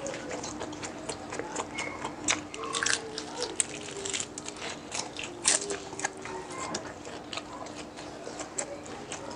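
Close-up eating sounds: crisp deep-fried pork mesentery (chicharon bulaklak) crunching in irregular bites, with wet chewing between them. The crunches come at uneven intervals, a few sharper and louder than the rest.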